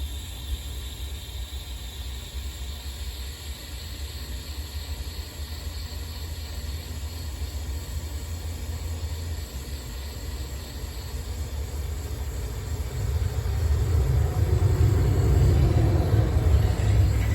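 Handheld heat torch running with a steady low rumble, getting louder about thirteen seconds in.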